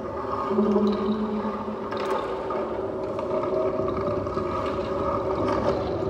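Double bass layered through a looper into a drone of long held notes, with a lower note sounding for about a second near the start.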